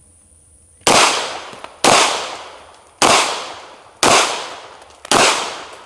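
Five shots from a Heckler & Koch USP 9 mm pistol, fired about one a second, each trailing off in a long echo.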